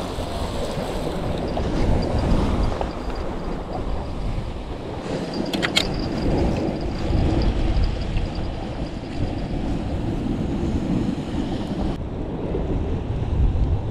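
Sea surf washing against a rocky shore, with wind buffeting the microphone as a steady low rumble. A brief sharp click comes about six seconds in.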